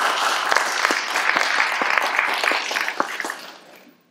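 Audience applauding: many hands clapping, fading away near the end.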